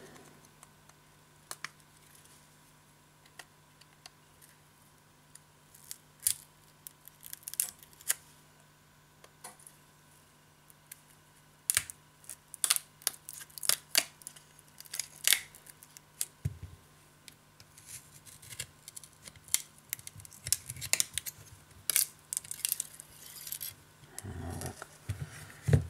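Metal pry tool clicking and scraping against the glass and frame of a Huawei Mate 8 as its heated, cracked display module is prised loose. Short, sharp clicks come sparsely at first, then thick and fast through the second half.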